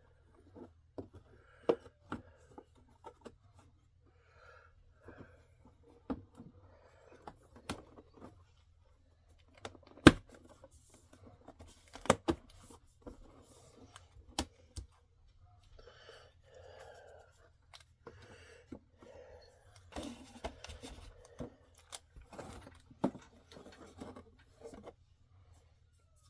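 Plastic parts of a cartridge storage rack being handled and snapped together: scattered clicks, knocks and scraping, with the loudest knocks about ten and twelve seconds in.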